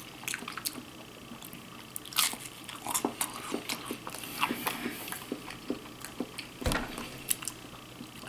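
A person chewing and biting into a pork quesadilla, with irregular small crunches and mouth clicks.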